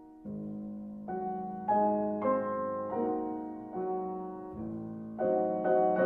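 Background piano music: slow chords struck one after another, each starting sharply and fading away.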